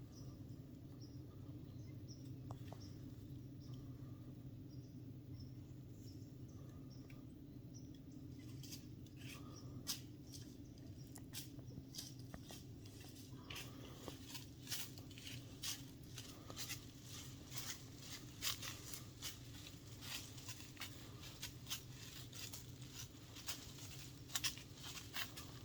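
Faint, irregular light clicking and pattering that becomes much denser about eight seconds in, over a low steady hum.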